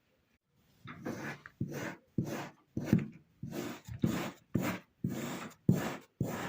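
Kinetic sand being sliced with a knife, a run of about ten short cuts, about two a second, starting about a second in.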